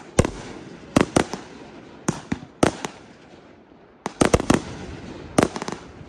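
Fireworks: aerial shells bursting overhead in a dozen or so sharp bangs at uneven intervals, with a quick volley about four seconds in.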